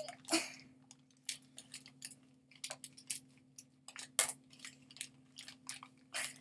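Blind-box toy packaging being handled and opened by hand, giving irregular sharp crinkles and clicks, over a faint steady low hum.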